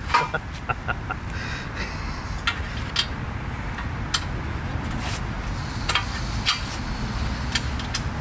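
Light metallic clicks and clinks, a dozen or so scattered at irregular intervals, as pins and their ring clips are worked into the joints of a black metal drift-raft frame, over a steady low background rumble.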